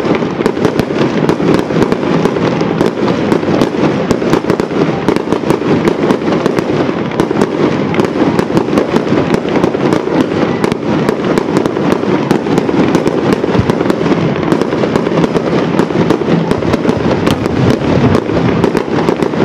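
Fireworks display: aerial shells launching and bursting in quick succession, a dense, unbroken run of loud bangs.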